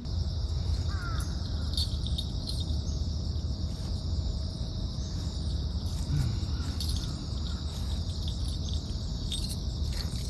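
Steady, unbroken chirring of an insect chorus, with a continuous low rumble underneath.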